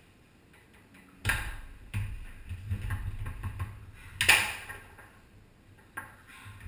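Foosball play on a Tornado table: two sharp, hard clacks, one about a second in and a louder one about three seconds later, with a lower clatter between them.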